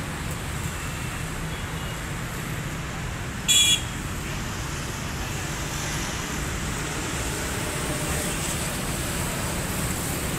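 Steady low hum of distant road traffic. About three and a half seconds in, a brief loud high-pitched beep cuts through it.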